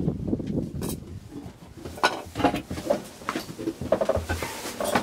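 Wind on the microphone for about the first second, then a string of irregular knocks and clunks as someone climbs down a sailboat's wooden companionway steps into the cabin.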